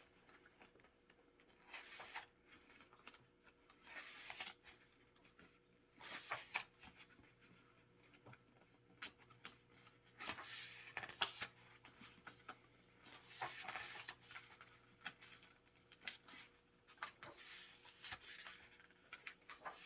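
Faint paper rustles of album photobook pages being turned and handled, a soft swish every couple of seconds.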